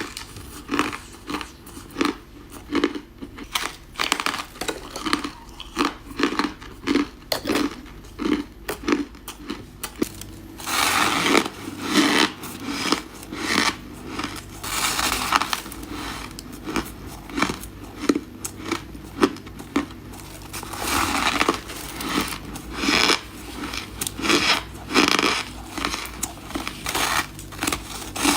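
Ice being bitten and chewed close to the microphone: a steady run of sharp crunches, two or three a second, with longer grinding stretches in between.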